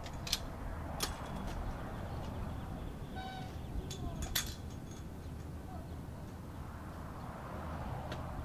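Steady low street rumble with a few sharp metal clicks and one brief squeak, as a chain-link gate is unlatched and swung open.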